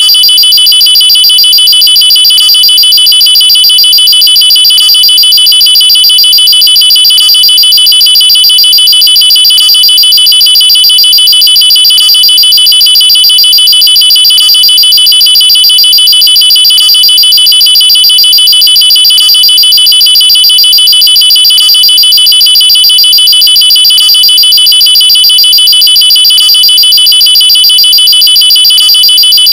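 Electronic alarm sounding continuously: a loud, high-pitched tone that pulses rapidly at a steady pitch, without rising or falling. A faint tick recurs about every two and a half seconds.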